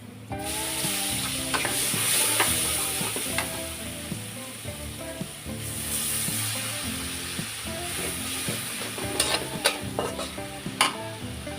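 Food hits hot oil and starts sizzling suddenly about half a second in, then fries loudly while it is stirred, with sharp clicks of the utensil against the pan. Quiet background music plays underneath.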